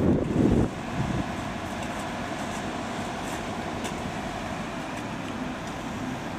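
Volvo EW140C wheeled excavator's diesel engine running at a steady drone. Wind buffets the microphone in the first second.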